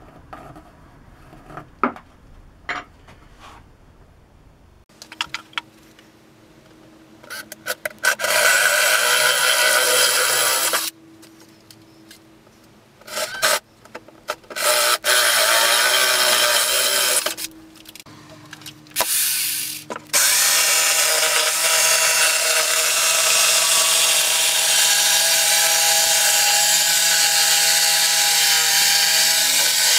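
A few light knocks, then a power tool cutting, run in several short bursts of a few seconds each and then held on steadily through the last third.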